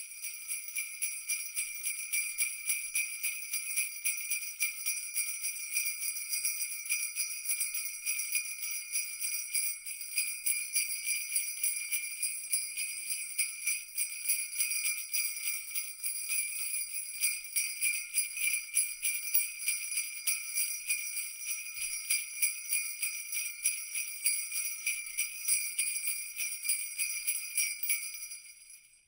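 Sleigh bells shaken continuously in a dense, even jingle, fading out near the end.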